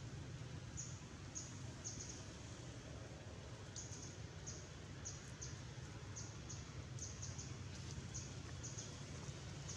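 Short high chirps repeating irregularly, several a second, over a steady low hum.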